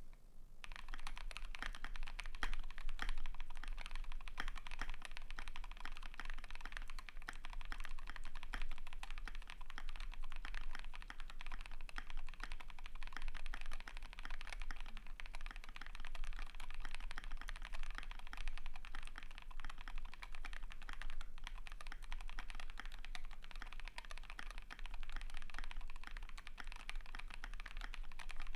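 Continuous fast typing on a custom KBD75 v3.1 mechanical keyboard with lubed Gazzew Boba LT switches in a polycarbonate plate and Akko ASA-profile keycaps: a dense run of key clacks starting about half a second in.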